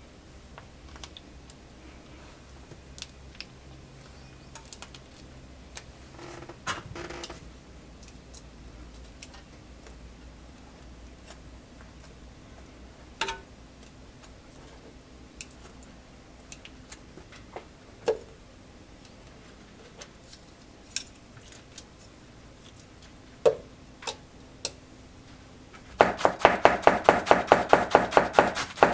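Light clicks and taps of metal tongs and utensils on a frying pan of egg-soaked bread over a faint low hum. Near the end, a kitchen knife starts shredding cabbage on a cutting board: fast, even chopping strokes, about seven a second, much louder than the rest.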